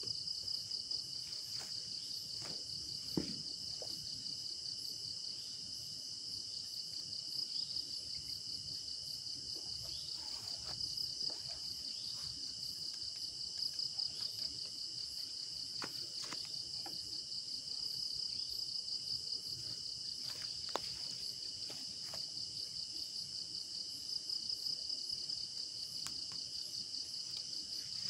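Night chorus of crickets: a steady, high, fast-pulsing trill that never stops, with a few faint clicks and pops scattered through it.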